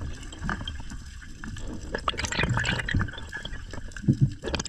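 Water gurgling and bubbling as heard underwater, with many scattered small clicks and pops, busiest about two seconds in.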